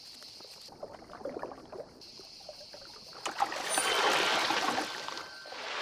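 Water splashing and spraying at the surface, starting about three seconds in and lasting about two seconds.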